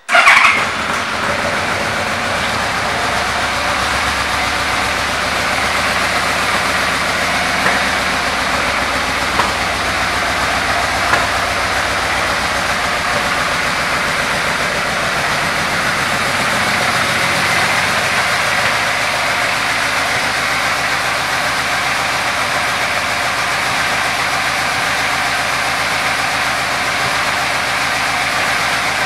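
2005 Yamaha Royal Star Venture's 1,294 cc V4 engine starting with a brief loud burst, then idling steadily through its stock dual exhausts.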